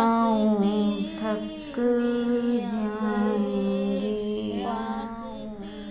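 A solo voice singing a naat (Urdu devotional song), drawing out long held notes that step down in pitch and fading out toward the end.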